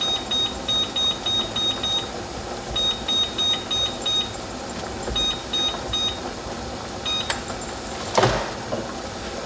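Electronic beeper sounding rapid high beeps, about four to five a second, in several bursts with short gaps between them. A brief clatter comes near the end.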